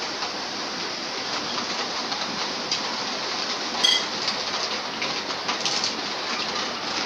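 A steady, even rain-like hiss with a few faint clicks and taps, one sharper click about four seconds in.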